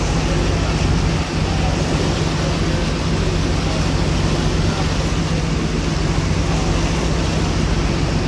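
Fishing boat's engine running steadily underway, a constant low drone, under an even hiss of rushing water and wind.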